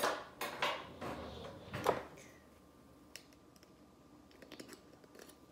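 A small metal can of tomato paste and a metal spoon being handled: a few sharp clicks and scrapes in the first two seconds, then faint light ticks as the spoon is worked into the can.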